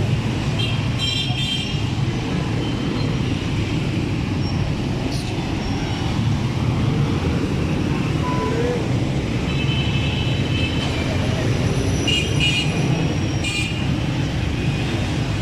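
Steady street traffic rumble with short horn toots about a second in and again several times near the end.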